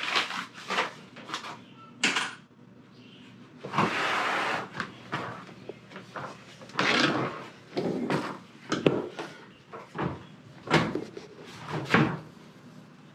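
Handling noise around a new dishwasher: a string of irregular knocks and clatters, with a plastic bag rustling, the longest rustle about four seconds in.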